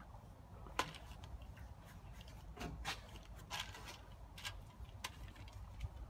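Quiet background with a low rumble and a few faint, scattered clicks, the sharpest a little under a second in.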